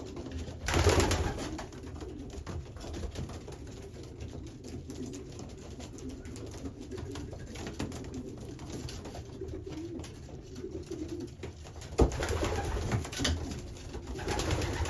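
Racing pigeons cooing steadily, with a sudden louder burst of noise about a second in and a sharp knock followed by more noise near the end.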